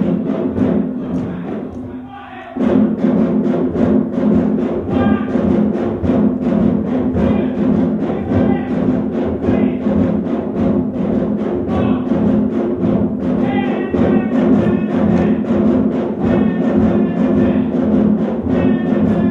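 A group of hand drums, djembes and conga-style drums, playing a steady, driving West African rhythm together with iron bells struck with sticks and a beaded gourd shaker, with voices heard now and then. About two seconds in the sound fades down briefly, then cuts back in at full strength.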